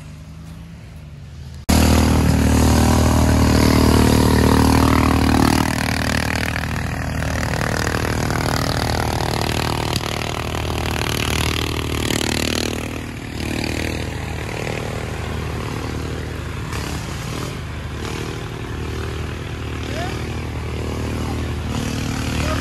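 Racing riding lawn mower's engine running hard close by, its pitch rising and falling as it is driven along a muddy trail. It comes in suddenly loud about two seconds in, after a fainter engine hum.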